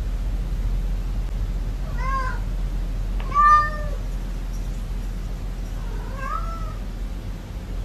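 Domestic cat meowing three times, drawn-out rising-then-falling meows that sound like "no", the middle one loudest. A steady low hum runs underneath.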